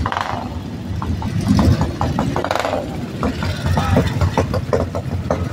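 Several motorcycle engines running at low speed as the bikes ride slowly past one after another, with a few louder surges from individual bikes.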